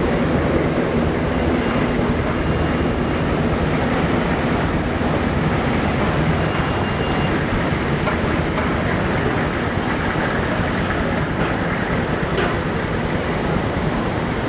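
Steady din of city street traffic at a constant level, with vehicles passing, picked up by a VHS-C camcorder's built-in microphone.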